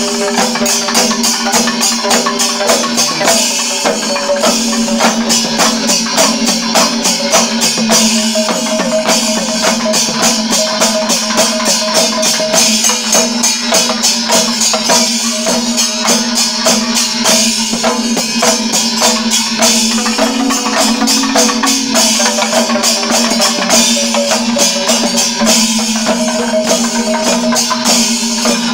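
Panchavadyam temple ensemble of drums and cymbals playing a fast, dense rhythm, with a steady held tone underneath.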